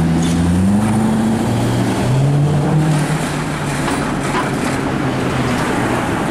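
Street traffic. A vehicle's low engine hum rises in pitch about a second in as it pulls away, and again around two seconds, over steady road noise.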